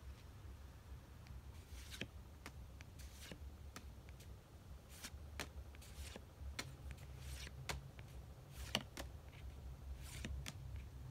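Pokémon trading cards being flipped through one at a time, each card slid off the stack with a short, soft snap or swish at an uneven pace, about once a second.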